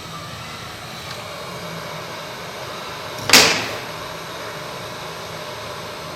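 Hot air rework station blowing a steady hiss of hot air over a freshly reballed chip, reflowing the solder balls so they settle round. About three seconds in there is one short, loud whoosh that fades quickly.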